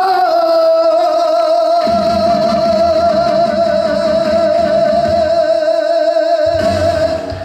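A trot singer holds the final sung note for about six and a half seconds with a steady vibrato. The backing band's accompaniment comes in under it about two seconds in, and its bass drops away near the end.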